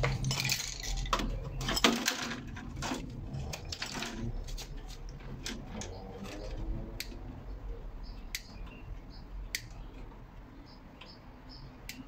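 Hand tools clicking and clinking against metal and plastic as a fridge's vent grille comes off and a tool works among the compressor wiring. There is a dense clatter in the first few seconds, then sparser single clicks.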